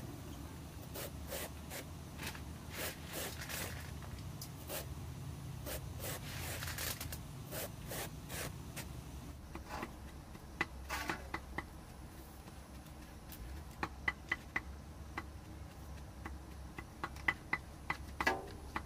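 A knife scraping along a green bamboo pole in quick repeated strokes, shaving off thin strips. Around halfway the strokes stop, and scattered sharp clicks and knocks follow.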